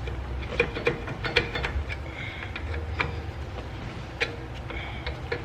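Small metal clicks and scrapes of needle nose pliers working a stuck rear brake pad in a Nissan 370Z's caliper, with two brief faint squeaks. The pad is binding in the caliper, which the owner suspects may be behind a scraping brake noise.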